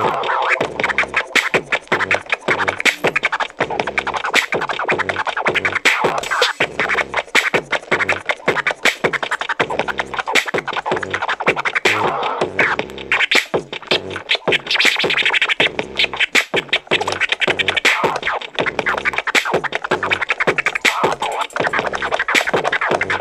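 Vinyl scratching on a Numark PT-01 Scratch portable turntable. A record is pushed back and forth by hand under a Shure M44-7 cartridge on a newly fitted Bihari straight tonearm, in rapid scribble scratches cut with the crossfader. The test is of whether the stylus stays in the groove under heavy-handed cutting.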